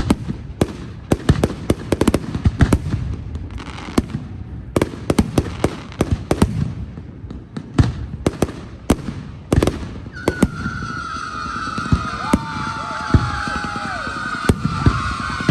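Fireworks display: a rapid, irregular run of bangs and crackles from bursting shells, several a second. About ten seconds in, a long high whistle sets in and slowly falls in pitch, with shorter wavering tones beneath it.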